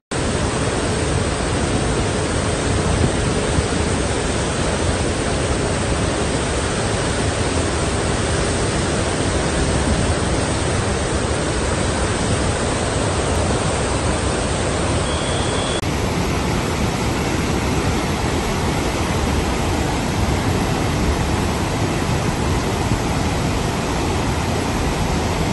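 Floodwater rushing out through the open spillway gates of Pandoh Dam: a loud, steady wash of water noise.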